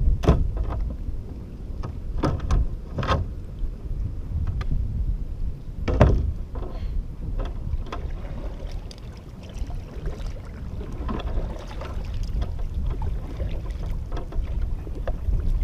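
Wind buffeting the microphone in a steady low rumble, with a few short knocks and splashes from the kayak and paddle. The loudest comes about six seconds in.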